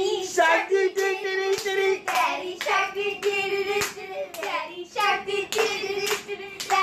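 Several voices, children's among them, singing excitedly along with hand clapping, with a few sharp claps standing out.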